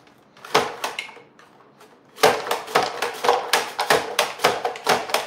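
Carrots being sliced on an upright mandoline slicer, the food holder pushed down over the blade. A few separate knocks come first, then from about two seconds in a fast, even run of sharp slicing strokes, about four to five a second.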